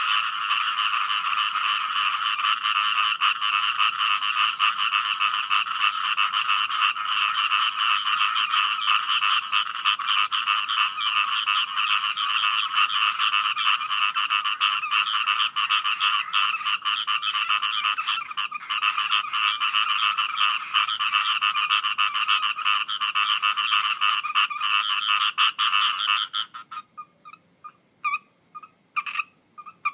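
A frog chorus: many frogs calling at once in a dense, loud wall of rapid croaks. About 26 seconds in the chorus stops abruptly, leaving only a few scattered single calls.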